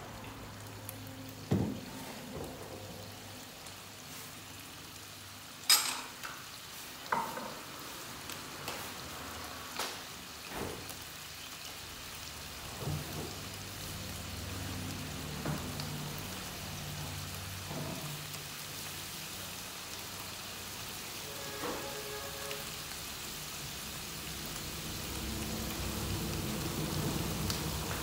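Pork rib pieces sizzling steadily in a frying pan on a gas burner, with scattered pops and a few sharp knocks.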